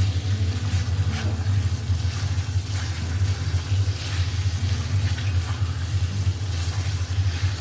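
A steady low hum, the loudest sound, with masala sizzling in an iron wok and faint spatula scrapes about once a second.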